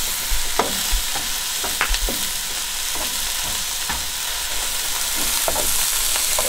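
Ground beef and diced potatoes sizzling in a frying pan on a camp stove, with a metal spatula scraping and stirring them in short strokes now and then.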